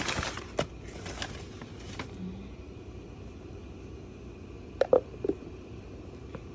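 Gift packaging being handled: crinkling and rustling for about the first second and a half, then low steady room noise, broken about five seconds in by three sharp clicks or knocks, the loudest sounds.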